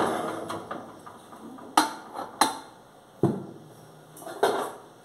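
Cooking pots and lids being handled on a gas stove: about five sharp metal clanks and knocks, each with a brief ring.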